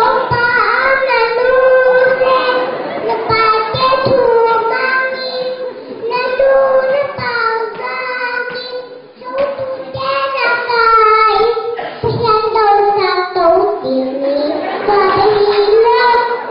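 A small girl singing into a handheld microphone, her high child's voice holding and bending notes, with a short break about nine seconds in.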